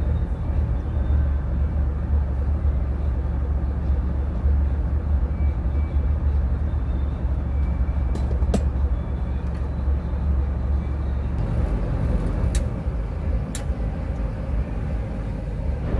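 Engine of a loaded rice cargo boat running steadily with a deep low rumble. A few sharp clicks sound about halfway through and twice near the end.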